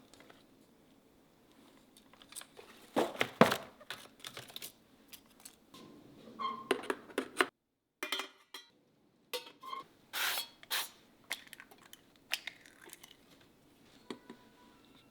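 Kitchen handling sounds: dishes and utensils clinking and knocking in irregular short clatters, loudest a few seconds in and again past the middle. The sound cuts out completely for about a second and a half near the middle.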